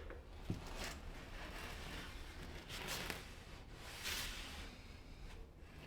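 Faint handling of wooden strips being fitted: a light knock about half a second in, then a few soft scraping rubs.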